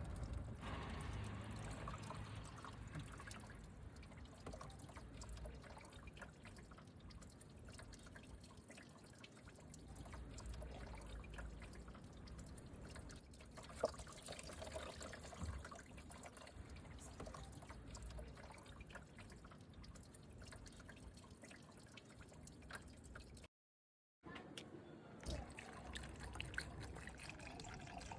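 Coolant dripping and trickling steadily, with one sharp click about halfway through and a brief dropout near the end.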